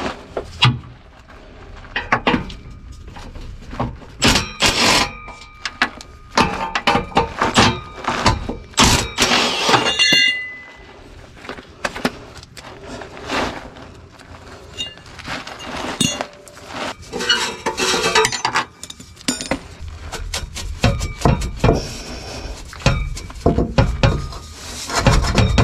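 Irregular metal clanks, clinks and knocks of hand tools and parts as a pipe is shifted and the loose starter is worked free from under a pickup, with a brief metallic ring about ten seconds in.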